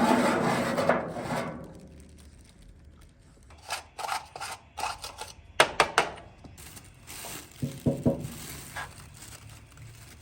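Cookware and utensils being handled: a scraping rustle at the start, then scattered knocks and clinks, with a few sharp ones about halfway through.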